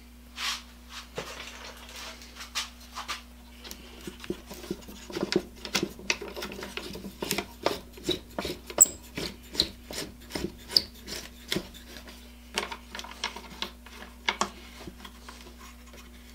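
Handling noise from a Black & Decker 1 hp router being turned and gripped on a wooden workbench: irregular clicks, knocks and rubbing of its plastic and metal housing. The clicks come thickest in the middle.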